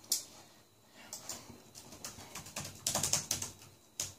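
Light clicks and taps of a computer keyboard being typed on: a sharp click at the start, a few scattered taps, then a quick run of keystrokes a little before the end.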